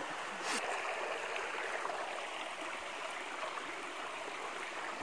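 River water running with a steady rushing hiss.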